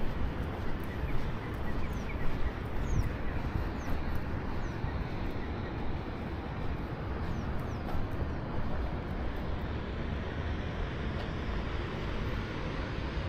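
Steady outdoor background rumble, with a few short, faint chirps falling in pitch, typical of small birds, mostly in the first half.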